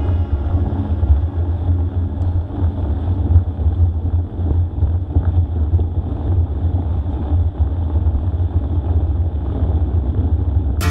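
Steady low rumble and hiss of a slow ride across snow, with wind buffeting the camera's microphone.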